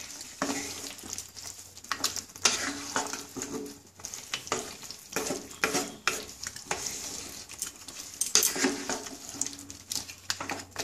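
Wooden spatula stirring and scraping thick chicken masala around a non-stick pan in repeated irregular strokes, the curry sizzling as the meat is fried down in its own juices.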